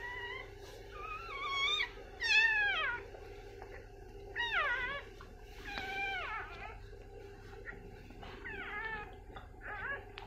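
Newborn puppy crying in about seven short, high squealing cries, several falling in pitch, the loudest about two and a half seconds in, over a faint steady hum.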